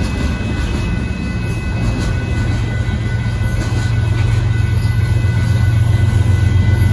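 CSX freight train's boxcars rolling past a grade crossing, a steady low rumble of wheels on rail that grows louder.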